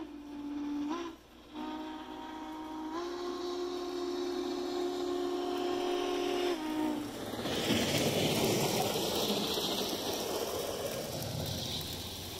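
The model 4449 steam locomotive's sound system gives long steam-whistle blasts, with a short break about a second in, and the whistle stops about seven seconds in. After that comes a steady rushing hiss of steam and running noise as the locomotive passes.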